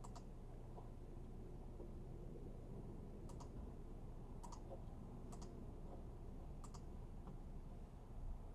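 Faint, sharp clicks at a computer, about five of them a second or so apart at an uneven pace, over quiet room tone.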